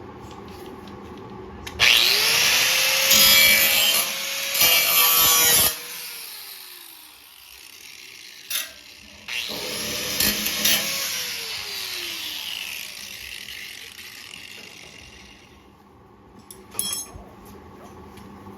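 Electric angle grinder on steel, run twice. Each time it spins up with a rising whine and grinds rough and loud for a few seconds, then winds down with a falling whine.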